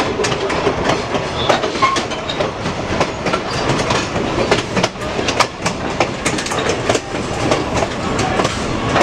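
Riding in a moving passenger train car: a steady rumble of wheels on the rails, with irregular clicking and clatter throughout.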